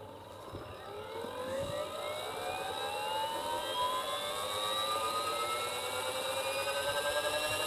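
Radio-controlled MD500 scale helicopter's motor and rotor spooling up. It makes a whine with several tones that rises steadily in pitch and grows louder.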